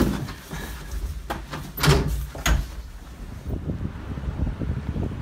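A hotel closet door flung open with a bang, followed by a few more knocks and thuds. Near the end a low, rough outdoor rumble takes over.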